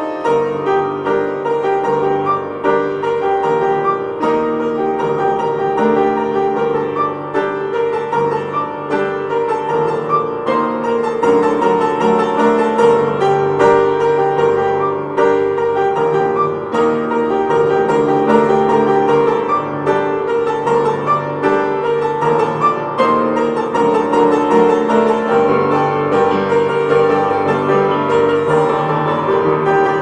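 Piano music, a continuous flow of notes.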